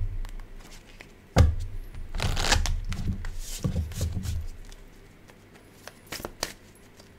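A deck of oracle cards being shuffled and handled. A sharp tap comes about a second in, then several seconds of shuffling rustle, then a few light clicks near the end.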